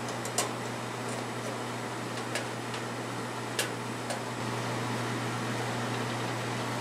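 Screwdriver tightening screws into a metal wing rib, giving a handful of light, sharp clicks spread over the first four seconds, over a steady low room hum.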